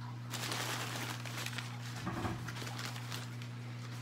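Crumpled paper packing rustling and crinkling as hands dig through a shipping box, over a steady low hum.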